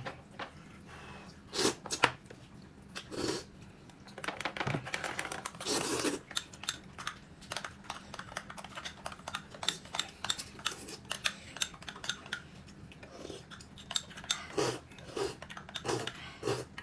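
Handling sounds: a run of small rustles, crinkles and clicks, with a few louder bursts about two, three and six seconds in.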